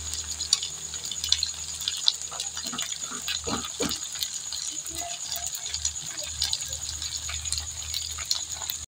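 Marinated boneless chicken pieces frying in hot cooking oil in a frying pan: a steady sizzle with frequent small crackles and pops.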